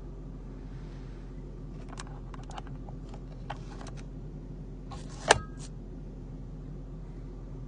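Steady low drone inside the cabin of a 2002 Jaguar XJR on the move, with a scatter of small clicks and taps from about two to four seconds in and one sharp, loud click a little past five seconds.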